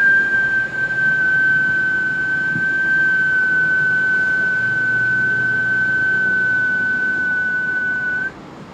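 A single long whistled note, held steady at one high pitch for about eight seconds. It sags slightly and flicks up just before it cuts off.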